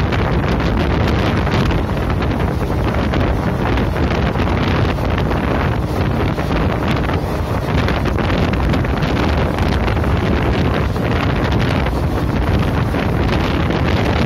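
Wind rushing over the microphone held out of a moving passenger train, mixed with the steady running noise of the coach on the rails.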